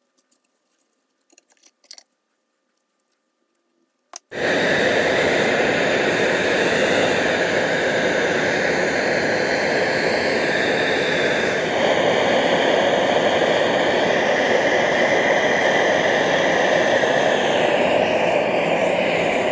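Handheld gas torch burning steadily into a small firebrick forge, heating the saw-steel blade red-hot before it is quenched in oil to harden it. The flame's steady rushing noise starts abruptly about four seconds in, after near silence with a few faint clicks.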